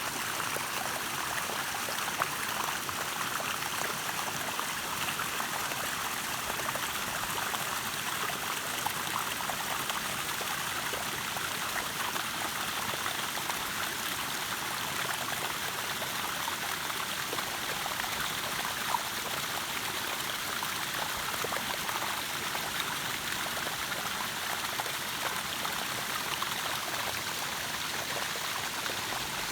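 Mountain stream rushing and splashing over rocks, a steady even rush of water.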